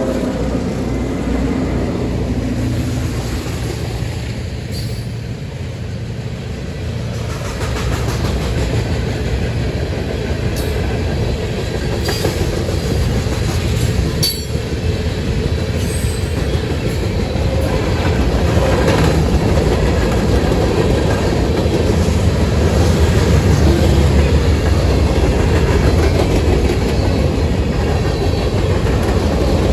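A train rolling past: a steady low rumble of locomotives and wheels on the rails, with clatter over the rail joints and a few sharp clicks. It grows louder in the second half.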